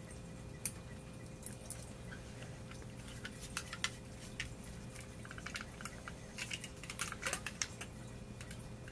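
Scattered light clicks and taps of a small hard-plastic Dalek action figure being handled and turned over, coming in little clusters, most around the middle and about seven seconds in.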